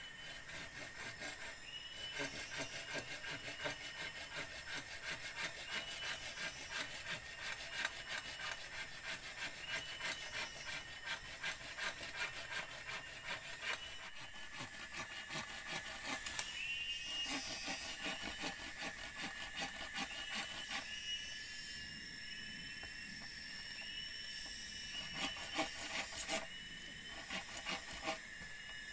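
Wood being scraped in quick, rhythmic strokes, over a short high call that repeats every second or so and a steady high tone.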